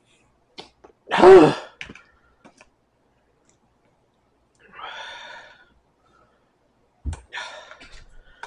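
A man gives one loud, harsh cough about a second in, a reaction to the burn of extremely spicy ramen that has his nose and face on fire. A softer breathy sound follows a few seconds later, and quieter scrappy noises near the end.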